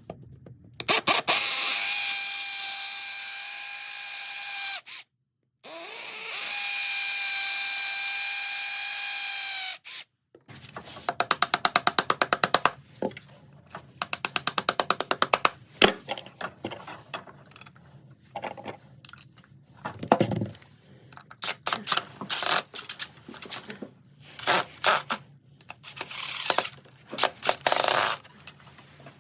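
Power drill running in two long steady runs, then a long stretch of short bursts and rapid ratcheting clicks as it is used in brief pulls.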